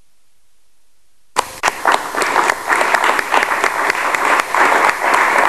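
Audience applauding. A brief silence, then the clapping starts abruptly about a second and a half in and keeps going.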